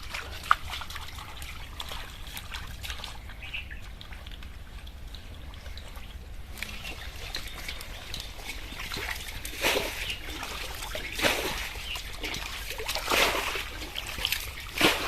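Hands splashing and sloshing in shallow, muddy pond water, with trickling throughout. The splashes grow busier in the second half, with stronger ones about 10, 11 and 13 seconds in.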